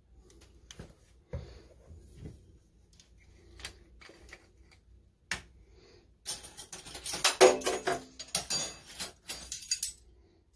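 Kitchen handling sounds: scattered light clicks and knocks, then from about six seconds in a few seconds of dense clinking and rattling as a ring of metal measuring spoons and a bottle of Worcestershire sauce are handled.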